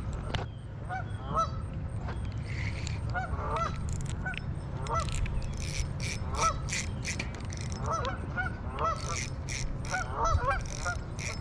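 A flock of geese honking repeatedly, the calls coming in short clusters of two to four honks, with a steady low rumble underneath.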